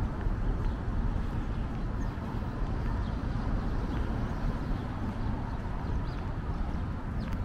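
Outdoor city street noise: a steady low rumble, as of traffic and wind, with no single distinct event.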